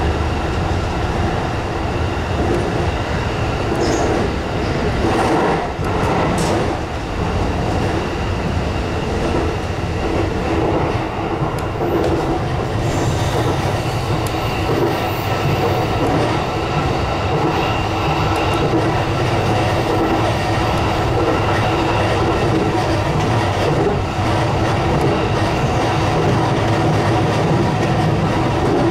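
JR East E233-series electric train running along the line, heard from inside the front car: a steady rumble of wheels on the rails, with a few sharper knocks about four to seven seconds in.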